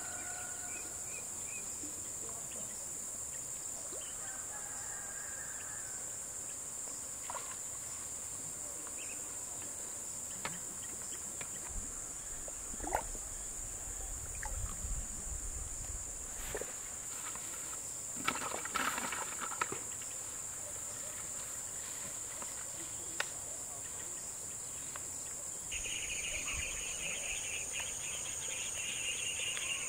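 Steady, high-pitched shrill of crickets and other insects, with a second, lower insect trill joining near the end. A few faint clicks and a brief low rumble come midway.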